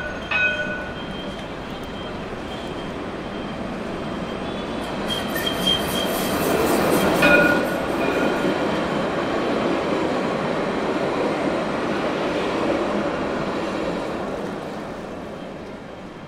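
Jerusalem Light Rail tram passing close by on street track. Its rolling noise builds to a peak about seven seconds in and fades toward the end, with a few short high tones near the start and at the peak.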